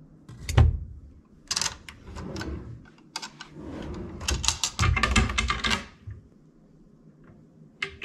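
Light clicks and clatters of plastic water bottles on a hotel minibar shelf being handled, and a hand working at the wooden cabinet door below. One sharp click comes about half a second in and a dense run of clicking comes about four to six seconds in, then it falls quiet.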